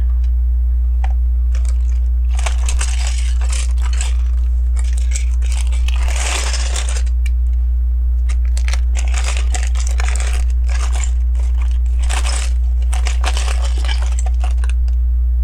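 Small plastic LEGO pieces handled and sifted by hand, in irregular rustling and clicking spells, over a steady low electrical hum.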